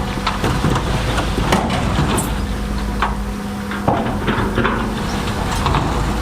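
Bulldozer's diesel engine running steadily under load, with irregular clanks and knocks of metal and stone as it works through rock.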